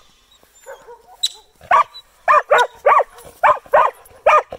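Karelian Bear Dog barking a quick, even series of high, sharp barks, about three a second, at a marmot. The barks begin about a second and a half in, after a brief soft whine.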